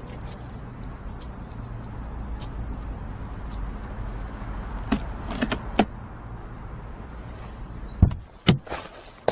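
Steady low hum of a car's interior with a few light clicks and jingles, then two loud thumps about eight seconds in, a car door opening and shutting.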